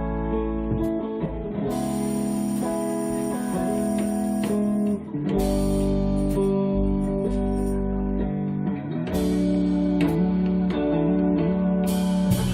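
Live band playing the instrumental intro of a slow blues-rock song, with guitar leading over bass. Notes ring and change about once a second, with a bright shimmering wash joining about two seconds in and again near the end.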